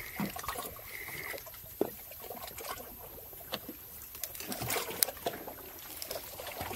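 Water trickling and splashing, with scattered light knocks and clicks and a faint steady tone in the first second or so.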